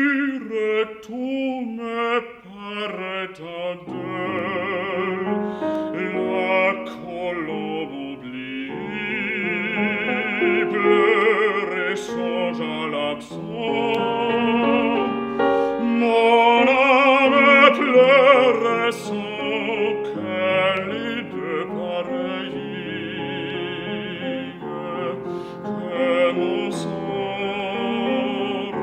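A baritone singing a classical art song in operatic style with wide vibrato, accompanied on grand piano. The piano's low notes come in about four seconds in.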